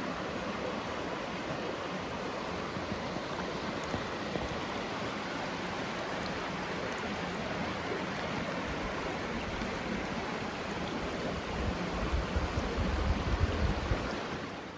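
Mountain stream water rushing steadily. Near the end a louder, uneven low rumble comes in over it for a couple of seconds.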